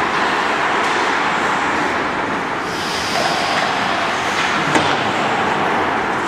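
Ice hockey skates scraping and gliding on rink ice, a steady hiss of play, with a brief higher hiss around the middle and one sharp click about three-quarters of the way through.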